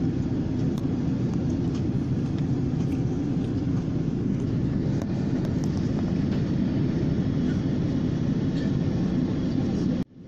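Passenger airplane cabin noise: a steady low rumble of engines and rushing air, which cuts off suddenly near the end.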